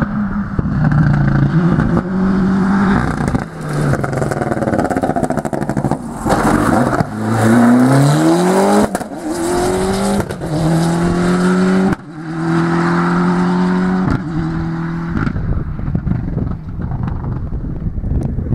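Ford Escort rally car's engine revving hard as it accelerates past, pitch climbing and then dropping at each upshift, before fading as the car drives away.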